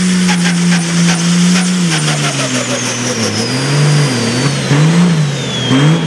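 Pro Stock pulling tractor's turbocharged diesel engine held at a steady high speed, then dropping off about two seconds in and being blipped up and down several times. A thin high whistle sinks slowly in pitch over the same stretch.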